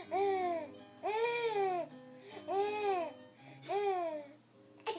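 Baby babbling: four drawn-out, high-pitched calls, each rising and then falling in pitch, with faint music underneath.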